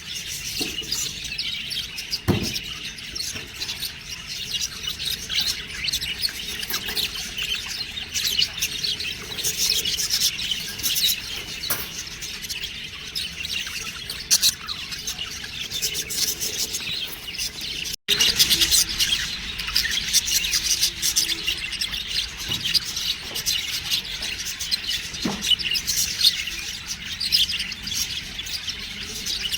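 Budgerigars chirping and chattering continuously in a dense stream of short, high chirps. The sound breaks off for an instant a little past halfway through.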